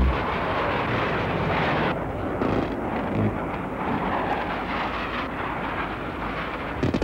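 Hawker Hunter jet flying by, its jet noise a steady, even rush, with a sharp crack near the end.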